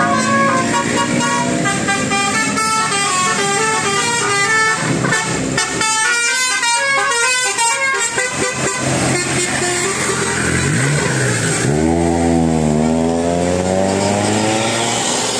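Bus "telolet" multi-tone horn playing a quick melody of stepping notes for most of the first nine seconds, over traffic noise. Later a lower sound dips in pitch and rises again.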